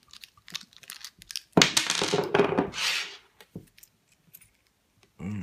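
American Lock 700 series padlock being worked apart by hand: small metal clicks, then a louder scraping rattle for about a second and a half as the core is worked loose, then a few more clicks.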